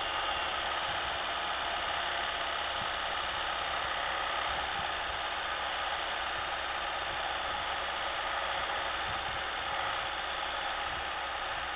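Steady cabin noise of a Citroën Nemo 1.3 Multijet diesel van cruising at about 85–90 km/h in fifth gear on a wet road: a low engine drone under an even hiss of tyres and wind.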